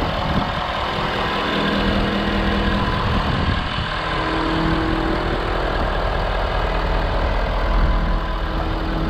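Ford 6.7L Power Stroke V8 turbodiesel idling steadily, heard up close from the open engine bay.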